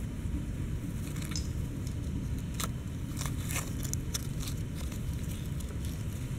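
Scattered light crackles and clicks of dry leaf litter being handled by macaques, over a steady low rumble.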